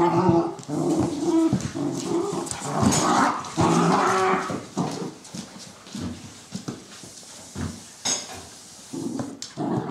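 Two cocker spaniel puppies growling at each other as they play-wrestle, loudest in the first few seconds, then quieter with scattered clicks before rising again near the end.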